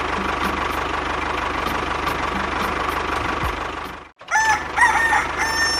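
A small engine runs steadily with a faint regular ticking, then cuts off abruptly about four seconds in. A rooster then crows, a few short notes ending in one long held note.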